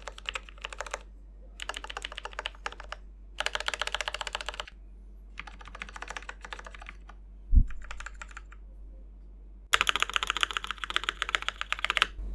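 Typing on a 1stplayer Uni-Q mechanical keyboard with Gateron Yellow linear switches: several runs of fast key clacking with short pauses between them. A single low thump about seven and a half seconds in is the loudest sound.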